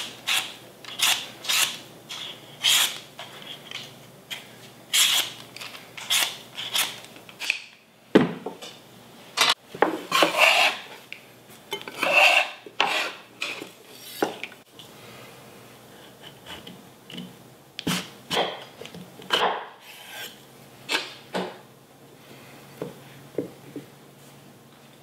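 Y-shaped vegetable peeler rasping down the skin of a butternut squash in sharp strokes, about one a second. After a thump about eight seconds in, a metal bench scraper scrapes peelings across a wooden cutting board, followed by scattered quieter knocks on the board.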